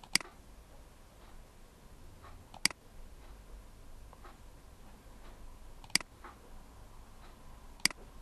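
Four sharp computer mouse clicks, two to three seconds apart, with a few fainter ticks between them.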